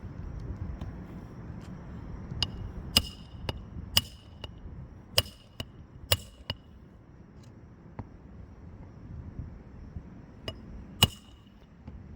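Hammer driving roofing nails into shingles: a series of sharp metal strikes, each louder one leaving a brief ringing ping. There are about half a dozen blows in the first half, a pause, then two more near the end.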